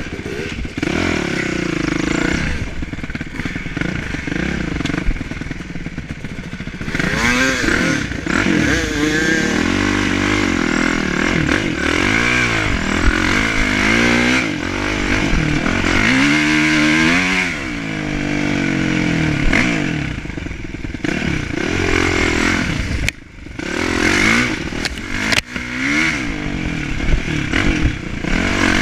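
Kawasaki KX450F dirt bike's single-cylinder four-stroke engine, heard up close while being ridden, revving up and down again and again as the rider works the throttle and gears. Its pitch climbs and falls in repeated sweeps, with a brief drop in level about three-quarters of the way through.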